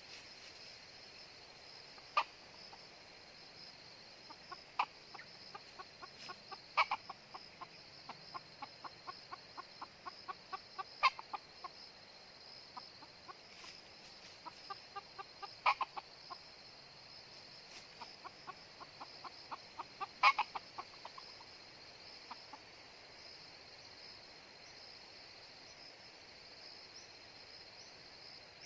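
Junglefowl clucking in rapid runs of short notes with a few louder single calls, over a steady high-pitched insect drone.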